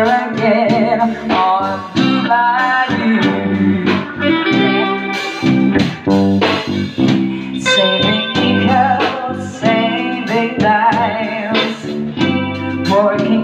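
Live rock band of electric guitars, bass and drums playing an instrumental passage, with a lead electric guitar line of bending, wavering notes over a steady drum beat.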